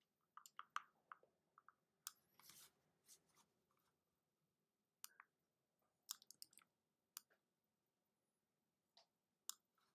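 Faint, irregular clicks against near silence, some in quick little clusters: a computer mouse being clicked while brushing and erasing in an image editor.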